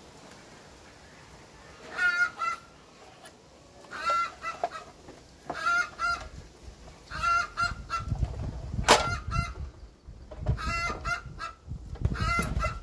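Domestic poultry calling in short bursts every one to two seconds. A sharp knock about nine seconds in, with a low rumble through the second half.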